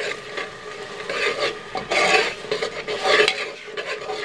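A spoon scraping and stirring a thick spice masala against the base of an aluminium pressure cooker in repeated strokes, roughly two a second, as the masala is fried down until the oil separates.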